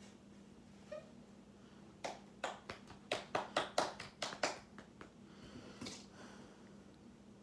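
A quick run of about ten sharp hand strikes, roughly four a second, that stops after a couple of seconds, over a faint steady hum.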